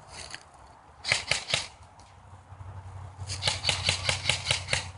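Airsoft guns firing: three quick snapping shots about a second in, then a fast string of about a dozen shots, roughly seven a second, near the end, with a low hum under them.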